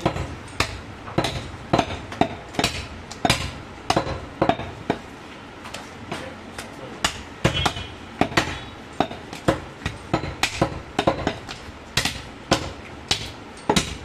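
Butcher's cleaver chopping goat meat and bone: a run of sharp chops, about two a second, fairly irregular.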